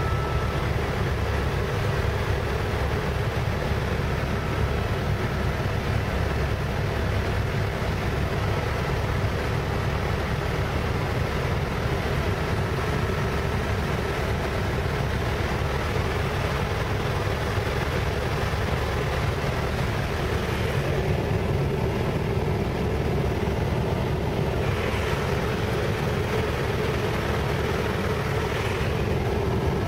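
Helicopter engine and rotor noise heard inside the closed cabin in flight: a loud, steady drone, with a faint high steady whine above it.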